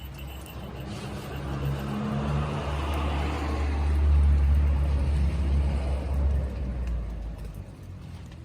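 A motor vehicle passing by: its engine and tyre noise swell to a peak about four seconds in and then fade away.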